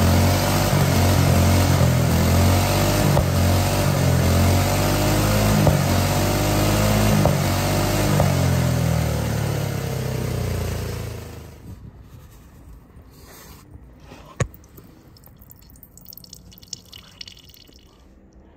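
Small go-kart engine converted to run on hydrogen gas, running loudly with its speed wavering up and down, then slowing and stopping about eleven seconds in. Afterwards there is a single sharp click and some light handling noises.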